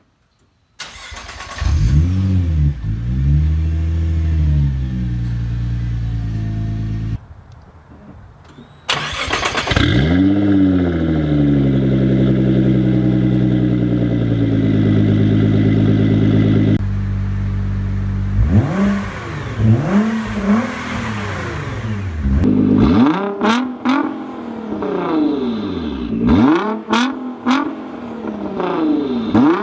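Nissan GT-R engine started and revved repeatedly while standing, heard through its exhaust for a stock-versus-Armytrix comparison. It starts about a second in and rises and falls in long revs. After a short quieter gap it revs again, then gives a string of quick blips with sharp cracks among them near the end.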